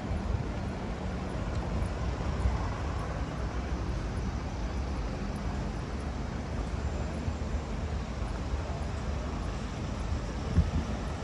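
Steady street traffic: an even, low rumble of passing vehicles with no single car standing out.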